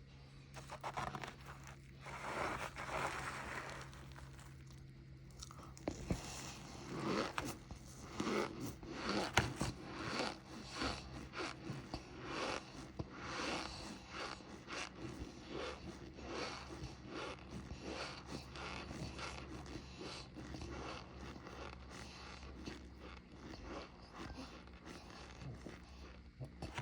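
Cornstarch being bitten and chewed, with a few softer crunches at first and then, from about six seconds in, a dense run of crisp crunching.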